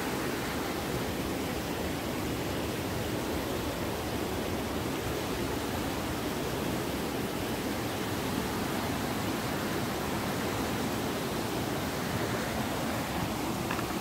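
A mountain stream swollen by the rainy season rushing over rocks: a loud, steady sound of fast-flowing water.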